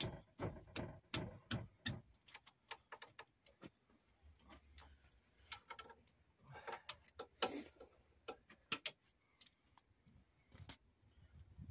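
Scattered light metallic clicks and taps of hand tools and sockets being handled, irregular, a few a second; no power tool running.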